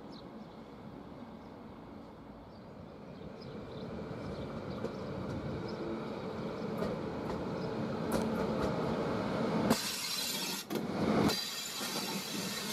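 ÖBB class 1216 Taurus electric locomotive rolling slowly past on the platform track, its rumble growing as it approaches, then a sudden loud rushing hiss with faint high squealing as it draws alongside, about ten seconds in.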